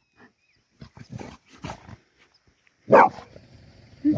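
Golden retriever barking: a few quieter short sounds, then one loud bark about three seconds in and another at the very end.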